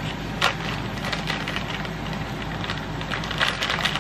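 Crinkling and crackling of a plastic resealable bag of shredded cheddar cheese as it is handled and pressed shut, with a dense run of small crackles that grows thicker near the end.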